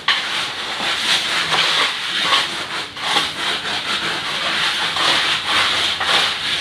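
Repeated scraping and rubbing strokes as wet concrete is worked and smoothed over the floor.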